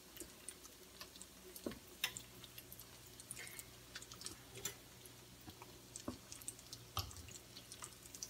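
Faint crackling of hot oil with scattered sharp pops as breaded mozzarella sticks shallow-fry in a pan, with the odd tap of a spatula and fork turning them. A faint steady low hum comes in about two seconds in.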